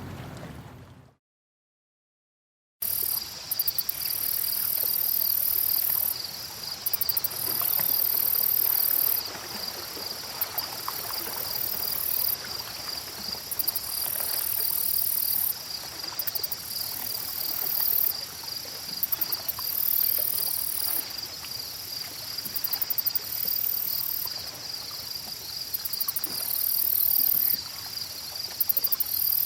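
Insects calling in a forest: a steady, high pulsing trill, overlaid by an even higher buzz that comes and goes in bursts of one to three seconds. It starts about three seconds in, after the previous water sound fades out and a moment of silence.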